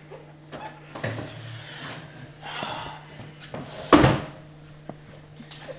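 Soft rustling of movement, then one sharp knock about four seconds in, like furniture being bumped or a drawer shut, with a couple of small clicks after it. A steady low electrical hum runs underneath.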